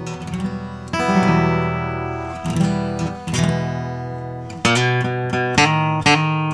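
Recording King acoustic guitar being played: chords struck and left to ring, then strummed more quickly from about four and a half seconds in.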